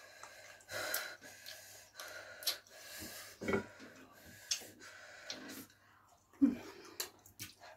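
A person breathing hard and gasping in short, irregular bursts from the burn of super-spicy food.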